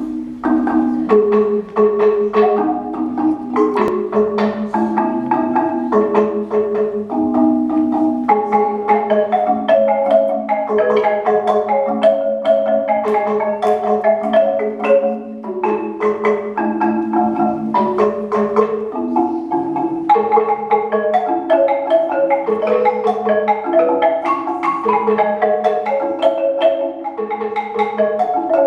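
Marimba de chonta, the Colombian Pacific-coast bamboo marimba, playing a fast instrumental passage of quickly struck mallet notes in repeating melodic figures, the notes ringing into one another.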